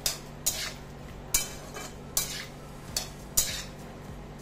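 A spatula stirring sliced bitter gourd in a kadai, with about six sharp scrapes against the pan at irregular half-second to one-second intervals.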